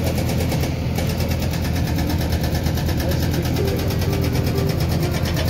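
JCB 3DX backhoe loader's diesel engine running steadily while it works the backhoe arm and bucket.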